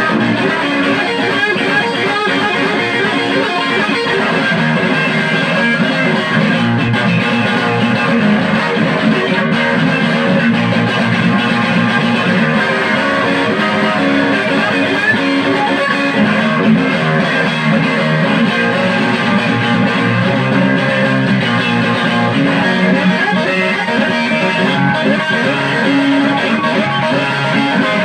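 Home-built Stratocaster-style electric guitar, plugged in and played continuously at a steady level.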